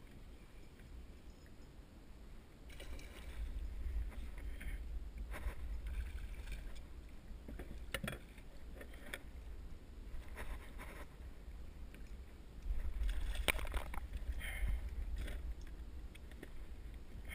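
Knocks, clicks and scrapes of a landing net and fishing gear against a plastic kayak hull as a catfish is netted and brought aboard, over a steady low rumble.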